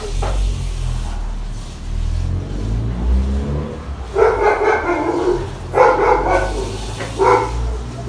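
A dog barking several times in the second half, over a low rumble.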